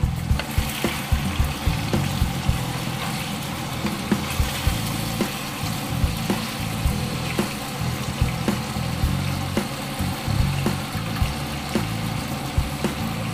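Pork belly pieces frying in a clay pot as a spatula stirs and knocks against the pot, with sharp clicks over a steady sizzle. Background music plays underneath.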